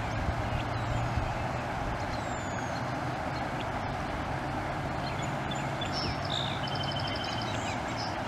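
Steady rushing of floodwater flowing across and alongside a road, with a low engine hum underneath that fades about seven seconds in. Brief high chirping comes in near the end.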